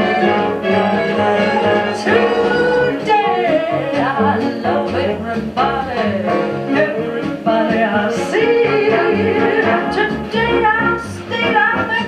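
Big-band style orchestra music with a gliding melody line, played from a stereo tape cartridge through a 1959 RCA Victor SCP-2 cartridge player.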